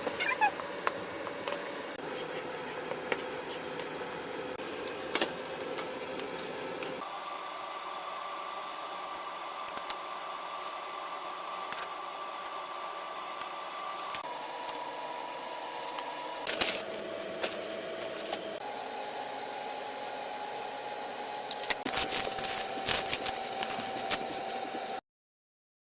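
Steady mechanical hum with a faint tone that shifts pitch several times, with scattered sharp clicks and knocks, busiest near the end, before cutting off suddenly.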